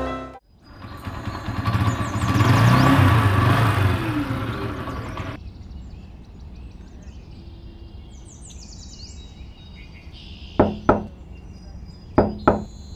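A vehicle going by for several seconds with a low rumble, then a quieter stretch with faint bird chirps. Near the end, knocking on a door: two quick knocks, a pause, then two more.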